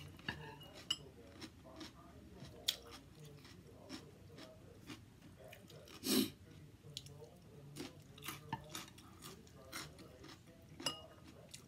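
A person chewing a mouthful of rice noodles, bean sprouts and cucumber, close to the microphone, with small clicks of chopsticks and a spoon against a plate. There is one louder knock about six seconds in.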